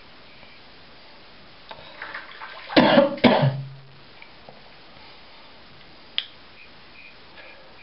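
A man coughs twice in quick succession, clearing his throat, about three seconds in. A single sharp click follows near the end.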